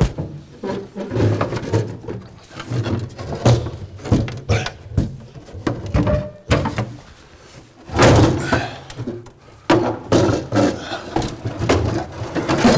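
Irregular knocks and clunks of a Land Rover Series 3's metal seat box being worked loose and lifted off the chassis, the heaviest clunks about eight seconds in.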